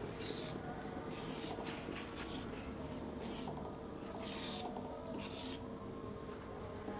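A stirring utensil scraping and rubbing against the bottom of a metal wok as thick peanut satay sauce is stirred, in a few separate rasping strokes, clearest near the start and about four and five seconds in. A faint steady hum runs underneath.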